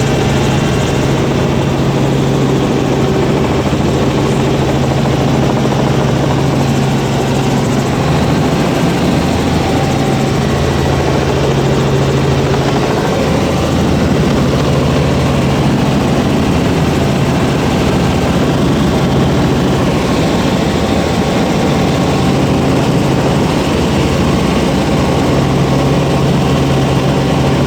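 Helicopter running steadily and loudly, its engine and rotor making a continuous drone with a strong low hum that does not let up.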